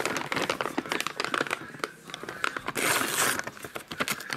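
Printed paper wrapping of a fireworks cake box crinkling under the fingers, with a louder rip of the paper about three seconds in as it is torn open.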